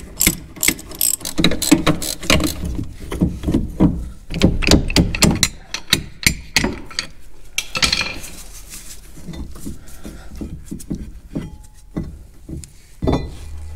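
Hand ratchet wrench clicking in rapid runs as bolts on a brake caliper are backed out, followed by a quieter stretch with a few metal knocks as the loosened parts are handled.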